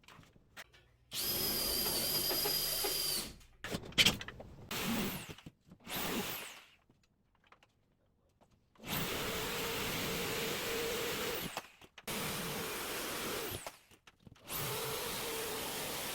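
Electric power drill running in several steady bursts with short stops between them, the first with a high whine, and a sharp knock a few seconds in.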